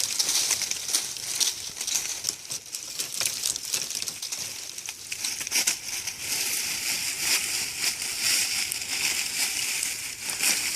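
Continuous crackling and rustling of a small tree's leaves and branches being pushed over, with many small snaps and crunches.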